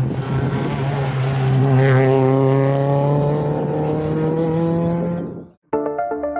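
A rally car passing at speed on a stage, engine running hard, its note loudest about two seconds in and then falling in pitch as it goes by. It cuts off about five and a half seconds in, and music with a regular beat starts near the end.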